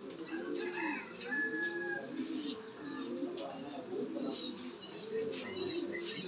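Domestic pigeons cooing in a loft: many overlapping low coos that rise and fall, with a few short higher chirps and faint clicks among them.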